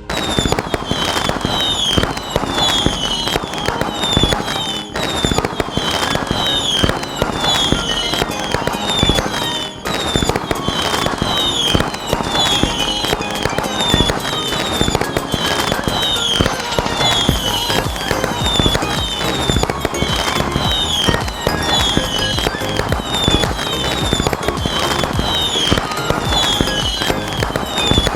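Firecrackers going off in a rapid, continuous crackle of bangs, like a long string of crackers burning through. Short high falling whistles repeat about once a second on top.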